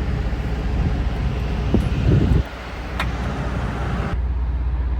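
An engine idling steadily, with a short bout of rustling handling noise around two seconds in and a single sharp click about three seconds in.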